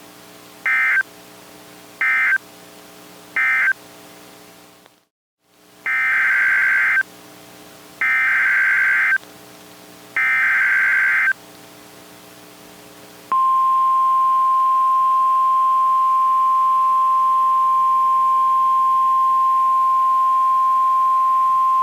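Emergency Alert System data bursts from a NOAA Weather Radio broadcast. Three short end-of-message bursts, then a brief dropout, then three longer header bursts announcing the next alert. After these comes the steady 1050 Hz National Weather Service warning-alarm tone for about nine seconds, which cuts off near the end. A faint hum sits under the gaps between the bursts.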